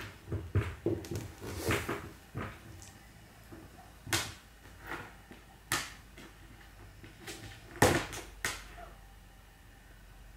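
A cat pawing at and stepping on a feather wand toy on a wooden floor: scattered light knocks and taps from the toy's plastic handle and the paws on the boards, about ten in all, the loudest about eight seconds in.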